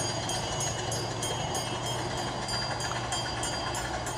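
Small 15-inch gauge steam locomotive running, a steady rumble with faint regular ticks about three to four times a second.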